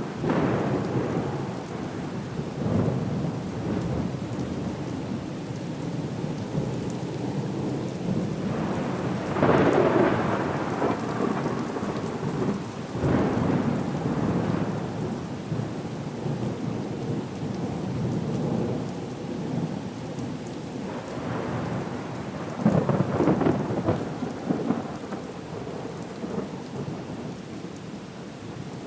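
Storm ambience: a steady hiss of heavy rain with rumbles of thunder swelling up several times, loudest about ten seconds in and again after about twenty-two seconds.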